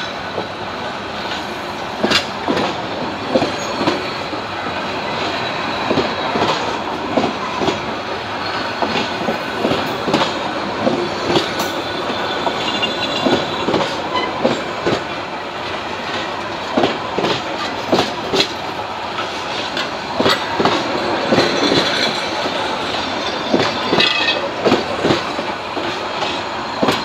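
Bangladesh Railway intercity passenger coaches rolling past close by. The wheels clack over the rail joints at an uneven rhythm, several knocks a second, over a steady rumble.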